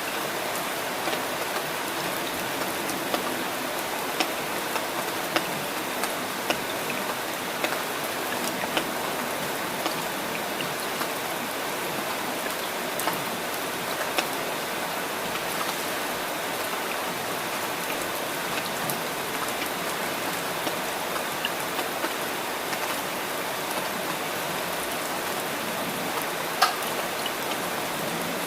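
Steady rain falling, an even hiss of water with scattered sharper drop hits; one drop lands louder near the end.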